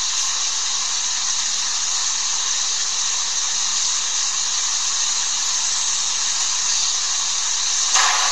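Steady hiss with no voice or music, and a brief knock near the end.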